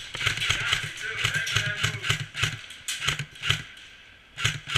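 Airsoft electric gun firing in several short full-auto bursts: rapid strings of sharp clicks over the gearbox's low buzz.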